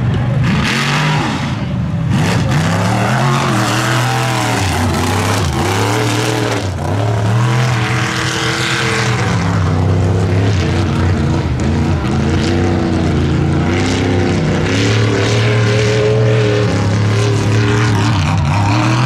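Lifted one-ton class mud race trucks' engines revving hard, their pitch climbing and dropping again and again as the throttle is worked.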